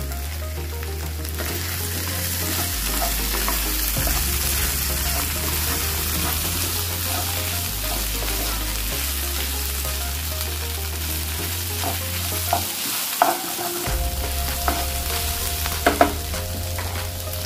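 Chicken, onion and capsicum sizzling in a non-stick kadai while a wooden spatula stirs and tosses them, with a steady frying hiss. Several sharp knocks of the spatula on the pan come near the end.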